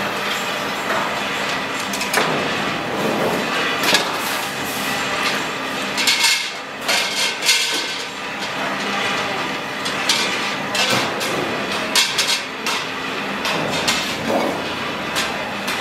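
Steel motorcycle wheel rims clanking against one another as a bundle of them is lifted and set down: a series of sharp metallic knocks, most of them in the middle, over a steady workshop din.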